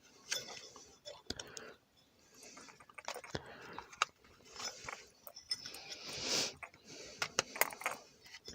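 Scattered small metallic clicks, clinks and brief scrapes of fittings and tools being handled and threaded together on a propane changeover valve, with a longer scrape about six seconds in.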